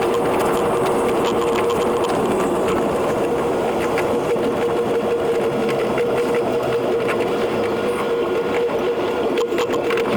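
Running noise of a JR East E721 series electric train, played back sped up tenfold: a fast, dense clatter of clicks over a steady hum.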